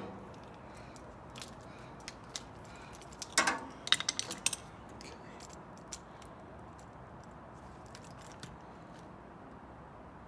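Light metal clinks and clicks from small parts and hand tools being handled while a microwave is taken apart, with a cluster of clinks about three to four and a half seconds in and a few scattered ticks otherwise.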